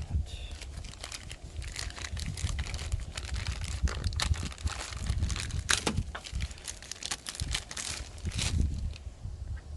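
Crinkling, rustling and small irregular clicks and knocks from handling a replacement lawnmower air filter.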